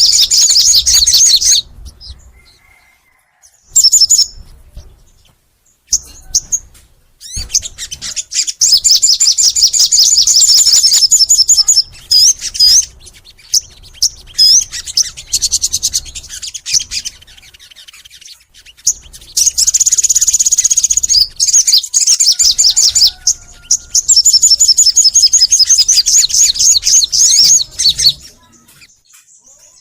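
A sogon songbird singing in bursts of fast, high, chattering trills, several of them lasting a few seconds, with short pauses and brief phrases in between.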